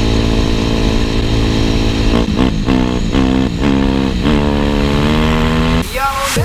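Kawasaki KX250F's single-cylinder four-stroke engine running, then revved in about five quick throttle blips a couple of seconds in before settling back to a steady run. It cuts off near the end as music comes in.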